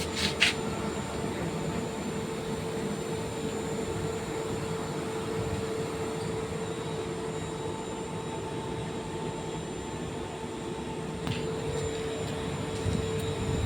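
30 kW (40 HP) rotary screw air compressor running steadily: a constant mechanical hum with a steady whine on top, broken only by a couple of short clicks near the start and about eleven seconds in.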